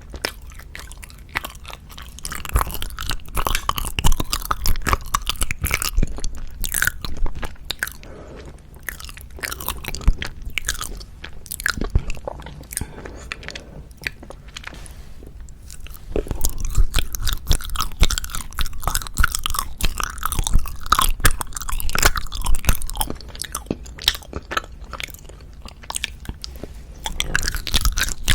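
Close-miked chewing and biting of wagashi (Japanese confections): dense, irregular mouth and bite sounds. They come in two long, louder bouts with quieter chewing in between.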